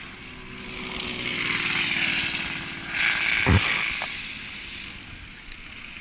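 Racing go-karts with Briggs & Stratton World Formula four-stroke engines passing on the track, the engine sound swelling about a second in and fading away over the last couple of seconds. A single thump about halfway through.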